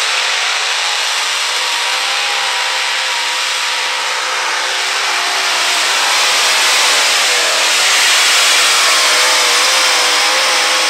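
Multi-engine unlimited modified pulling tractor running at full throttle as it pulls the sled down the track: a loud, dense, raspy engine noise whose pitch wavers, growing a little louder about halfway through.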